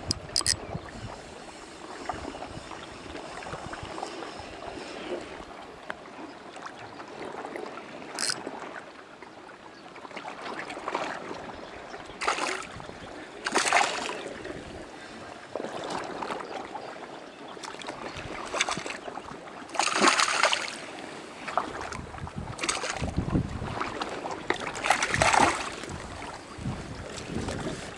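Sea water lapping and sloshing against the rocks, with wind on the microphone and several short louder rushes of noise along the way.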